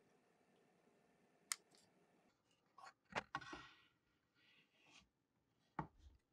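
Very quiet room with a few short clicks and light knocks: one about a second and a half in, a cluster with a brief rustling hiss around three seconds, and one more near the end.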